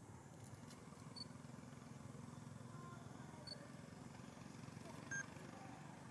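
Faint outdoor background: a steady low rumble with a few brief high chirps, the loudest about five seconds in.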